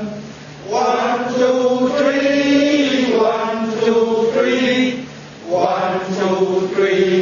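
A voice chanting in long, held notes, dropping out briefly about half a second in and again about five seconds in.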